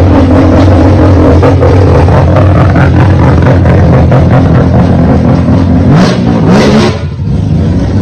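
Mazda RX3's rotary engine running loud at high revs as the car accelerates away. Its pitch climbs about six seconds in, then drops off briefly about seven seconds in.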